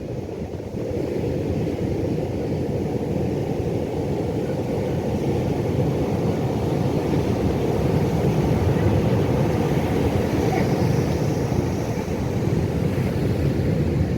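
Ocean surf breaking, a steady deep rush of waves with no separate crashes, growing a little louder in the second half.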